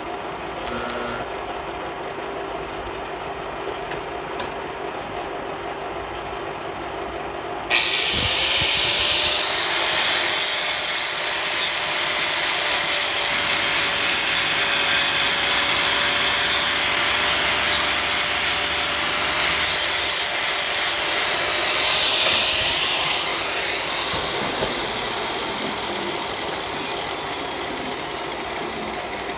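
A steady background hum, then about eight seconds in an angle grinder starts, its motor note rising and holding while the disc grinds down a fresh weld on thin steel plate with a harsh hiss. It is switched off and winds down about six seconds before the end.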